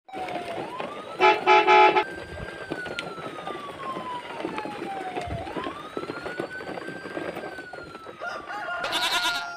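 Wailing siren, its pitch rising quickly and then falling slowly, twice over. Three short, loud horn toots come about a second in.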